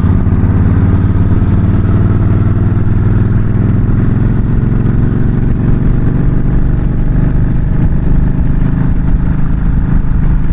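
Yamaha V-Star 1300's V-twin engine running steadily while the motorcycle cruises at highway speed.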